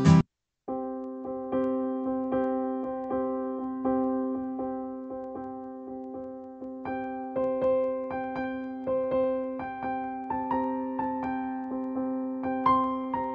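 Background piano music: slow single notes struck about once or twice a second over a held chord, starting after a brief gap at the very beginning.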